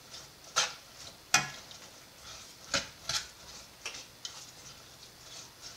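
Metal spoon clinking against the side of a copper saucepan while stirring candied peels in sugar syrup: a handful of irregular sharp taps, the loudest in the first half.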